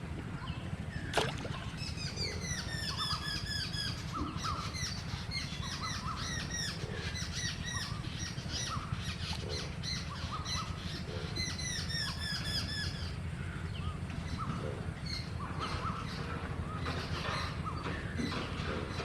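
Birds chattering and calling in quick, repeated squawking notes, densest for the first several seconds and thinning out later, over a steady low rumble. A single sharp click comes about a second in.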